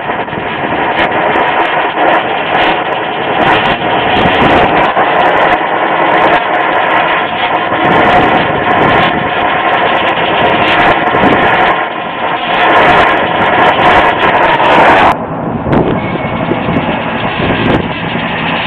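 Brazing torch flame burning steadily at a copper refrigerant line joint, cutting off abruptly about fifteen seconds in. A loud, steady, machine-like noise carries on underneath.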